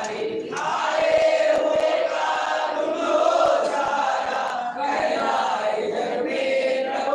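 Many voices chanting a Hindu devotional chant together, steady and unbroken.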